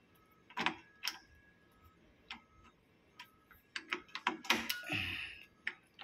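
Metal key working in a Hikson H.T. interlock key switch: scattered sharp metallic clicks as the key is inserted and turned, with a quick run of clicks about four seconds in and a duller knock just after.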